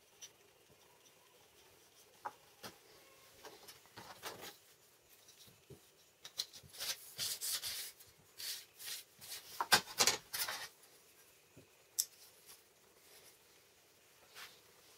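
Steel ruler sliding through the slot of a small homemade marking-gauge block with metal plates, a dry metal-on-metal scraping in several strokes about halfway through. Light clicks and taps from the parts being handled and set down on the board come before and after.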